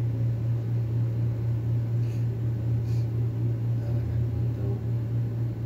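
A steady low hum with a hissy noise over it, with two faint rustles about two and three seconds in.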